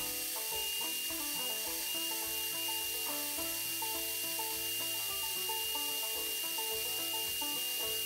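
Bandsaw cutting G10 handle scale material: a steady high whine with a hiss from the blade, holding even throughout.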